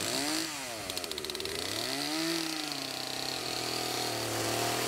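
Gas chainsaw engine whose pitch rises and falls a few times, then holds steady as the bar works down the centre of a birch log, ripping it in half for bowl blanks.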